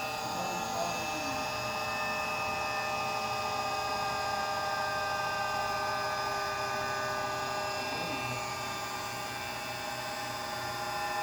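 Small electric motor driven by a Mitsubishi variable-frequency drive, running with a steady whine of several tones, some drifting slightly in pitch.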